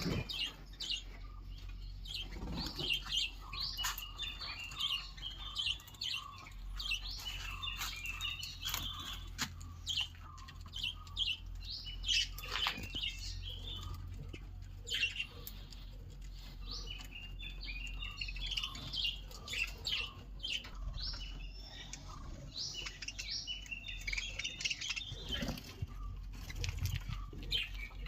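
Small birds chirping busily in many short, high notes, with wing flutters and scattered sharp clicks and taps, over a steady low hum.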